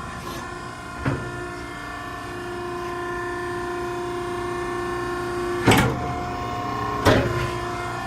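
Maren baler's hydraulic power unit running with a steady, multi-tone whine, with a sharp metal clank about a second in and two more near the end.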